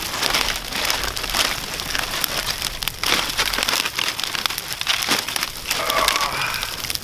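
Newly lit campfire crackling: a dense run of small pops and snaps over a hiss.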